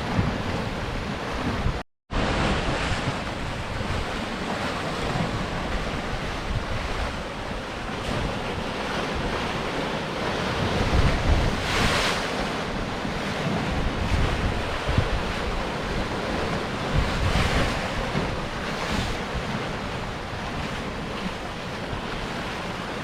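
Sea surf washing against rocks in a continuous rush, with several louder wave crashes in the second half and wind buffeting the microphone. The sound cuts out to silence for a moment about two seconds in.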